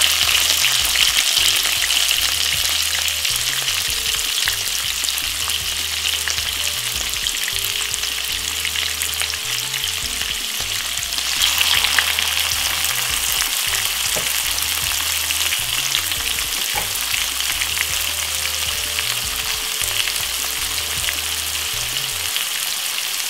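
Chopped onion, sweet peppers and tomato frying in hot olive oil in a frying pan over medium heat: a steady sizzle that swells briefly about halfway through.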